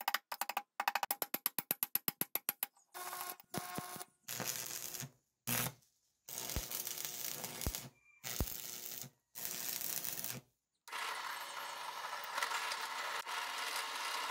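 A quick, even run of hammer taps on a steel tube part, followed by a string of short bursts of metalworking noise cut one after another, and near the end a bench drill press running steadily.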